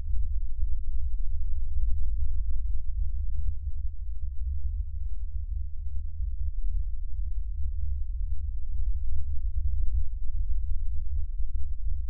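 A steady, loud low hum with nothing higher in pitch and no separate knocks or clicks.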